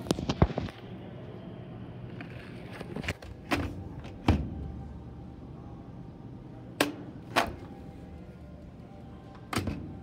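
Sharp knocks and bangs: a quick cluster at the start, then single hits every second or two, over a steady low hum.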